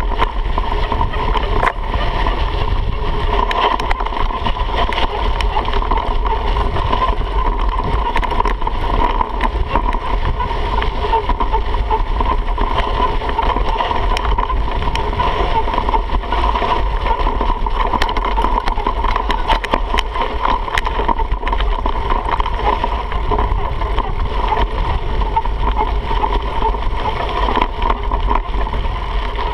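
Mountain bike riding fast down a dirt trail, heard from a handlebar-mounted camera: constant wind rush on the microphone and tyres rolling over dirt, with a steady hum underneath and frequent small clicks and rattles from gravel and the bike.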